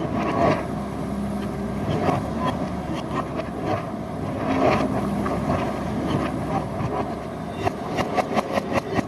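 Heavy diesel machinery engine running steadily, with a quick, regular series of sharp knocks over the last second or so.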